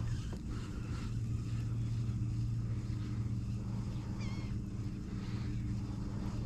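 A boat motor runs with a steady low hum. A bird calls briefly about four seconds in.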